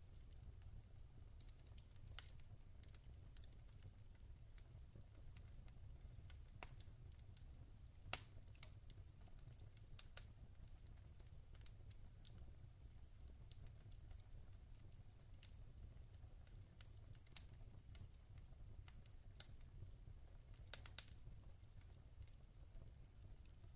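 Log fire crackling quietly: irregular sharp pops and snaps over a low steady rumble, with a few louder snaps among them.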